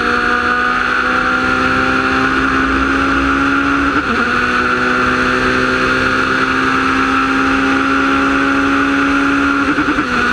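Wolf GB08 sports prototype's Honda engine at full throttle, its pitch climbing slowly, with two quick upshifts, about four seconds in and near the end, each a brief stutter and a drop in pitch. A steady rush of wind over the open cockpit runs beneath it.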